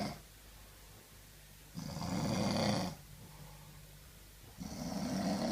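A man in deep sleep snoring in a slow, even rhythm: one snore of about a second comes roughly every three seconds, with the end of one at the start, a full one about two seconds in and the next beginning near the end.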